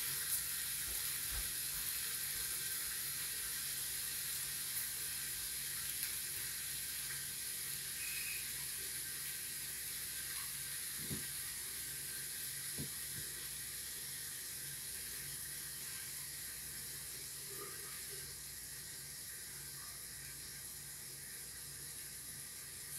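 Bacon-wrapped chicken sizzling in a waffle iron: a steady hiss of spitting grease that slowly fades.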